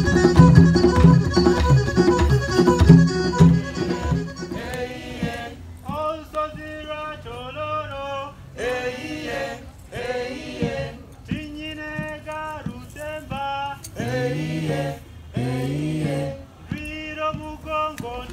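Loud rhythmic music with a steady drum beat, cut off about four seconds in. Then a man sings a song from Kigezi in short phrases with pauses between them, with little or no drumming.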